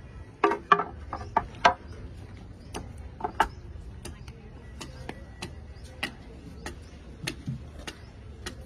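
Wooden cricket bats knocking and clacking against each other as they are shifted in a stack. A quick flurry of knocks comes in the first two seconds, then single knocks every half second or so.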